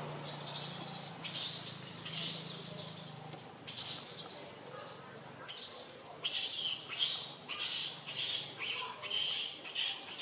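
Baby pig-tailed macaque giving a run of short, high-pitched distress cries, coming quicker and closer together from about six seconds in.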